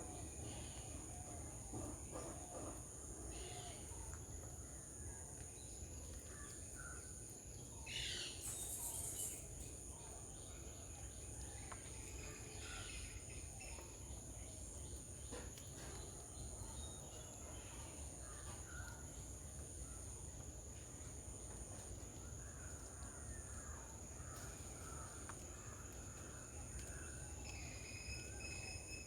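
Garden ambience: a steady high-pitched insect drone, with scattered bird calls and chirps over a low background rumble. A louder sweeping call comes about eight seconds in.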